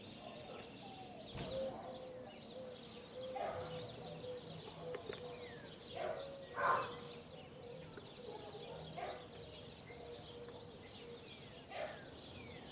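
Birds calling and chirping at a distance, scattered short calls with a few louder ones, over a faint steady tone.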